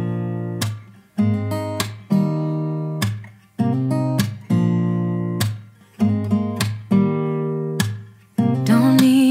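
Background music: acoustic guitar strumming chords about once a second, each ringing out and fading, with a brighter melody joining near the end.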